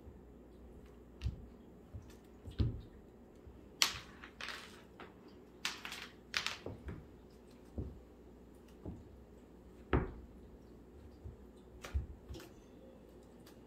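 Kittens' paws thumping and scuffing on a hardwood floor as they pounce and leap: scattered soft thumps, with a run of short scratchy scrapes between about four and seven seconds in.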